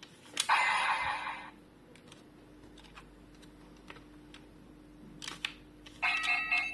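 Bandai DX Kamen Rider transformation toy being operated: sharp plastic clicks of its buttons and moving parts, a short electronic whoosh-like sound effect from its speaker about half a second in, and a burst of electronic beeping tones near the end.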